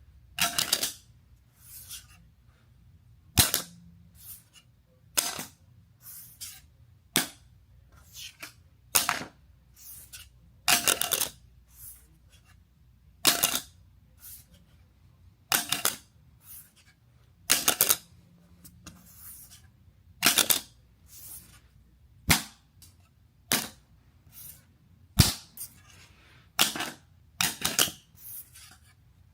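Metal credit card hitting a hard surface over and over in a sound test: sharp clinks every second or two, some with a short metallic ring after them.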